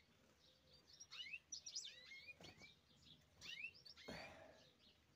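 Faint, scattered chirps from caged finches in a breeding aviary: short high calls that glide up and down, several in quick succession about a second in and again about three and a half seconds in.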